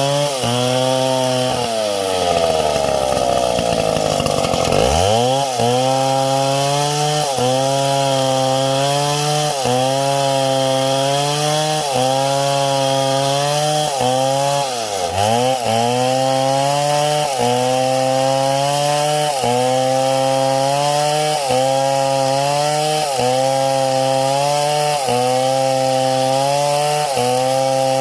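Chainsaw cutting wood, its engine speed dropping under load and recovering about once a second. The engine is dragged down deeply about two to five seconds in, and again briefly around the middle.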